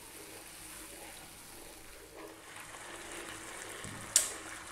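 Thick tomato sauce simmering in a non-stick frying pan, stirred with a wooden spoon, a steady soft bubbling and scraping. A single sharp knock about four seconds in.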